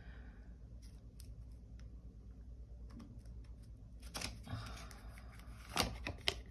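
Light clicks and taps of small objects being handled, a few scattered ones at first, then a cluster with a faint rustle a little past four seconds, and two sharper clicks near the end.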